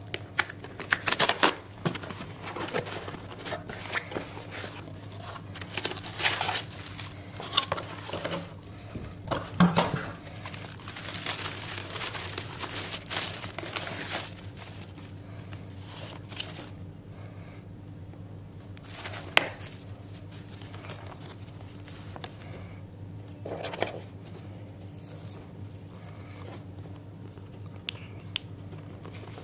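Cardboard box being torn open and honeycomb kraft-paper packing wrap crinkling and tearing in irregular rustling bursts, busiest in the first half, then sparser clicks and scrapes of boxes being handled, over a steady low hum.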